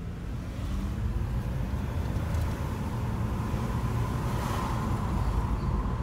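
2007 Toyota Sienna minivan driving with the windows open: low road and wind rumble, with a thin steady squeal that comes in about a second in. The driver suspects the squeal is a rear brake dust shield or something else touching and rubbing at the rear brakes.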